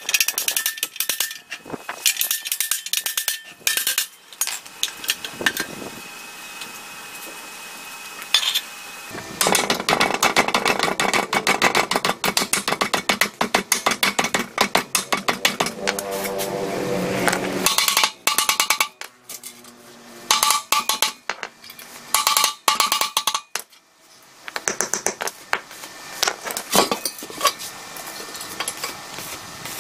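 Repeated hammer strikes on the rusted steel parts of an old air compressor tank, metal knocking and ringing, in runs of quick blows with short pauses between.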